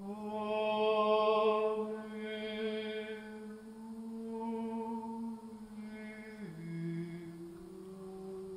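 Orthodox chant: voices singing a slow melody over a held low drone, which steps down to a lower note about six and a half seconds in.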